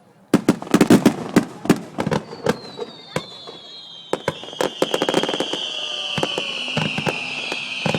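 Starmine fireworks barrage: a rapid volley of sharp bangs starts just after the beginning. From about two seconds in, several high whistles slowly fall in pitch and carry on under further bangs.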